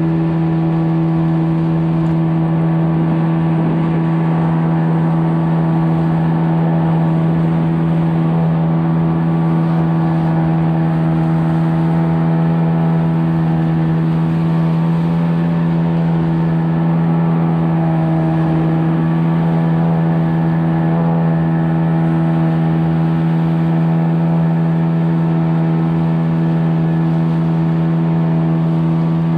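A motor running at a steady speed: an even, unchanging drone held the whole time.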